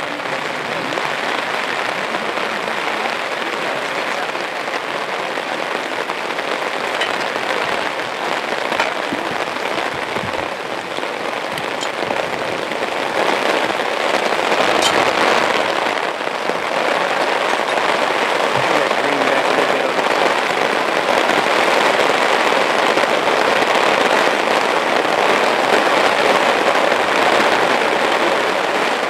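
Steady hiss of rain falling, growing a little louder about halfway through.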